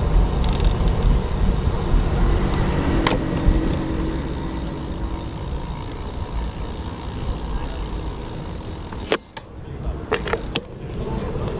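Steady wind and road rumble from riding a bicycle along a city street, with car traffic, and a few sharp clicks near the end.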